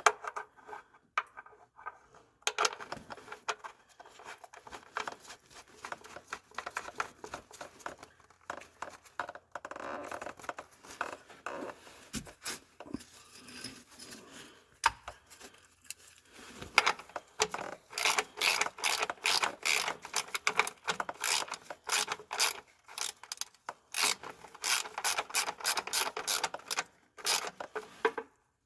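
Hand ratchet wrench clicking in quick runs, with rubbing and scraping of tools on metal; the clicking gets denser over the second half.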